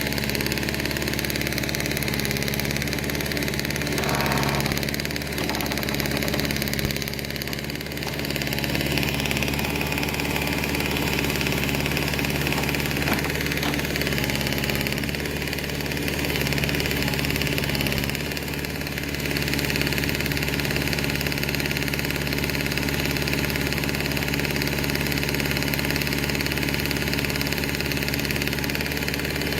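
John Deere 410 backhoe loader's engine running steadily at a fairly constant speed.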